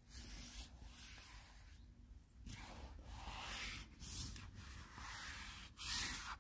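Soft, intermittent rustling and rubbing of fabric close to the microphone, in a string of short patches.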